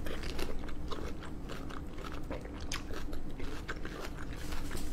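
Close-miked biting and chewing of a ripe melon wedge: a steady run of short, sharp clicks as the flesh is bitten and chewed.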